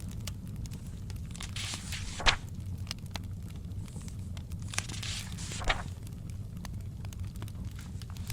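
Book pages being turned twice, each a swish of paper ending in a light snap, over the scattered crackle of a fire and a steady low rumble.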